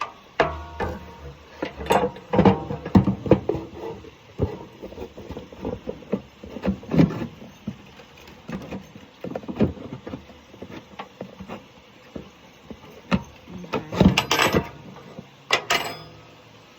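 Irregular knocks, clanks and clatter of parts and tools being handled on a riding lawn mower, in quick clusters about two seconds in and again near the end.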